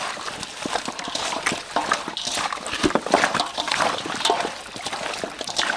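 Raw chicken drumsticks being mixed by hand with seasoning powder in a stainless steel bowl: a dense run of wet squelching and slapping of the meat pieces against each other and the bowl.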